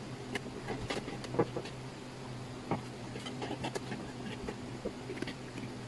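Light, irregular clicks and taps of a screwdriver and the plastic parts of a LiteBeam 5AC Gen2 dish being handled during assembly, over a steady low hum.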